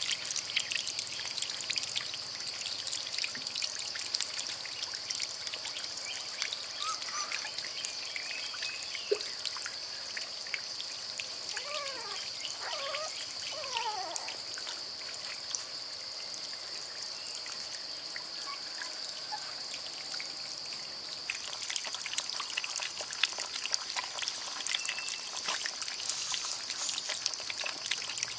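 Water pouring and trickling, full of small splashing clicks, over a steady high-pitched drone. A few short gliding animal calls come in around the middle.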